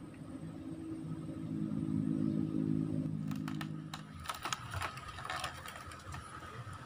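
A low, steady motor hum fades out about four seconds in. From about three seconds in, a quick irregular run of mechanical clicks and ticks follows, with a faint steady high tone under it.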